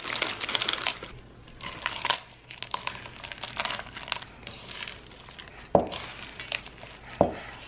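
Dark chocolate chips poured from a foil bag rattle into a stainless steel mixing bowl, a dense run of clicks that thins out to scattered ones. The chips are then stirred into cookie dough with a silicone spatula, with a couple of dull knocks near the end.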